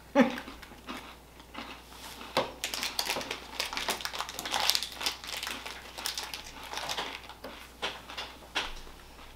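Crackly crunching of a cornflake-and-dark-chocolate bar being chewed, mixed with the crinkle of its plastic wrapper being handled. The crackle is densest a few seconds in.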